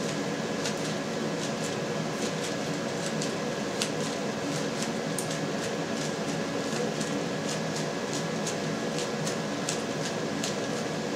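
A steady fan-like hum, with many faint, irregular small clicks and wet squelches as gloved hands fold and shape a hot ball of stretched caciocavallo curd.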